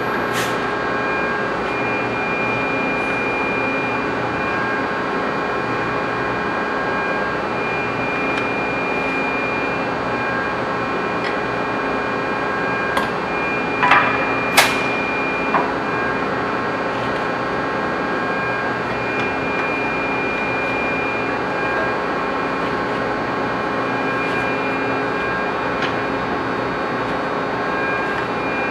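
Steady running noise of automated metal-forming machinery on a refrigerator door production line, a hum with a few high tones that come and go. Three or four sharp knocks come close together about halfway through.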